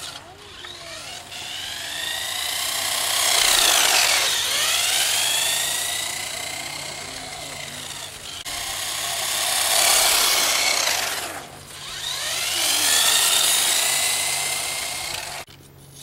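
Whine of a small electric RC car's motor and gears as it speeds past three times, swelling and then dropping in pitch with each pass. The sound cuts off abruptly near the end.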